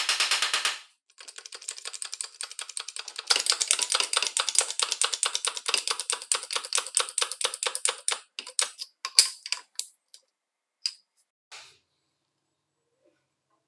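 A small hammer tapping a pin punch to drive a steel hinge pin into a circular saw's base-plate bracket: a fast run of light metallic taps, then a few single, firmer strikes near the end.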